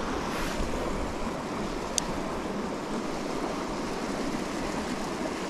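Steady rushing of a small creek running over rocks into a lake, with a single sharp click about two seconds in.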